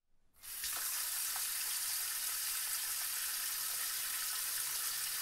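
Water running from a tap into a sink: a steady hiss that fades in about half a second in.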